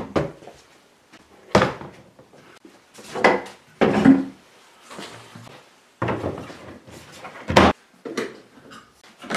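Handling knocks and thumps as a plastic trash can is set in place and a dust-collection hose is fitted onto a DeWalt thickness planer's dust port. About five separate knocks with quieter rustling between them; the loudest come about a second and a half in and near the end.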